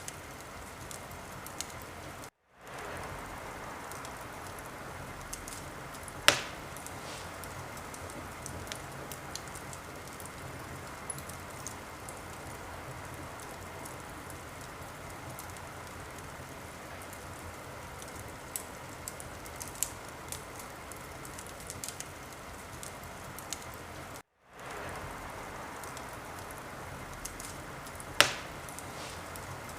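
Wood fire crackling in a fireplace: a steady hiss with scattered small crackles and two sharp pops, one about six seconds in and one near the end. The sound cuts out for a moment twice, about two seconds in and a few seconds before the end.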